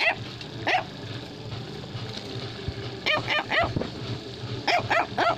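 Short, high yipping barks: one near the start and another just under a second in, then a quick run of about four around three seconds in and another run of about four near the end.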